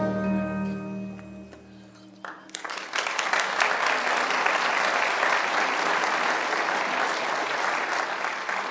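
The last held chord of a children's choir song and its accompaniment dies away, then about two seconds in an audience starts applauding, building quickly to steady clapping.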